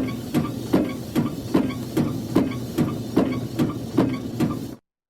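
Car windshield wipers on the fast setting sweeping over wet glass, about two and a half strokes a second, the rubber blades squeaking on each pass, over a steady hiss of rain. The sound cuts off suddenly near the end.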